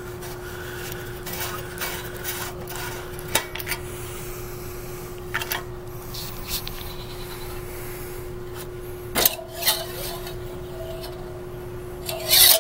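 Scattered light metallic clinks, taps and rubbing as hands handle the dusty sheet-metal engine shrouding of a Bolens 1050 tractor, with the loudest knocks about nine seconds in and just before the end. A steady faint hum runs underneath.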